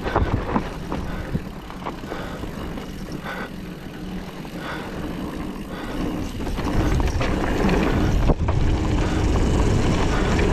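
A mountain bike rolling fast down a dirt trail: tyres running over loose gravel and packed earth, with scattered clicks and rattles from the bike and wind rumbling on the microphone. It gets louder and the wind rumble deepens from about two-thirds in.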